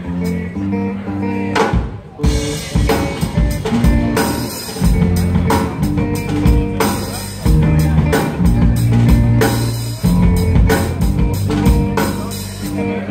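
Live rock band playing an instrumental song intro with electric guitars, bass and drum kit. Sustained guitar chords open it, and the drums come in with the full band about two seconds in.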